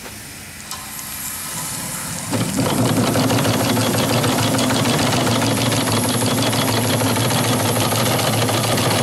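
Quarter-scale steam donkey's twin steam engines (1.75-inch bore, 2-inch stroke) being started: steam hisses as the valve is opened, then about two seconds in the engines start and run at a fast, steady beat with steam hissing from the exhaust.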